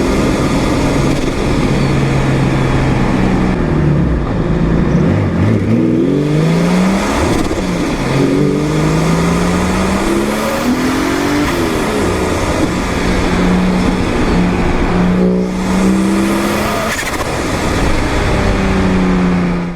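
Turbocharged car engine under hard acceleration: its pitch climbs and drops several times as it revs through the gears, then holds fairly steady near the end.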